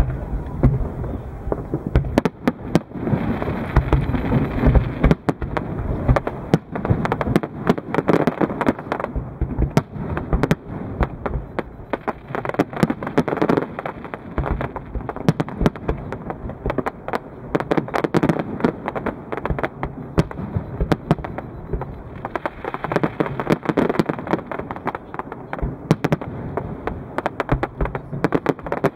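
Aerial fireworks shells bursting in a rapid, unbroken string of bangs and crackles, with no break between them.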